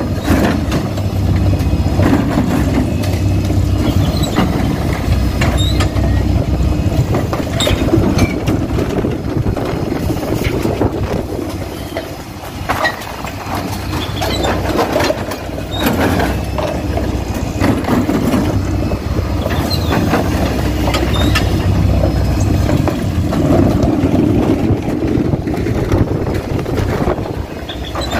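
Faun Rotopress refuse lorry running at the kerb while its rear lift empties wheelie bins: a steady engine drone with repeated knocks and clatters from the bins being hooked on, tipped and set down.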